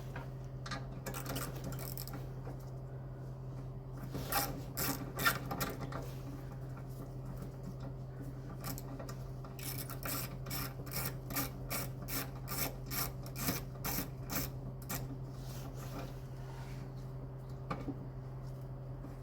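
Hand tools working on metal: scraping and rubbing, then a run of quick, regular clicks, about three a second, like a ratchet spanner turning a bolt. A steady low hum runs underneath.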